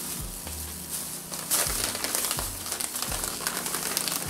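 Foil potato-chip bag crinkling as it is handled, with rapid irregular crackles throughout.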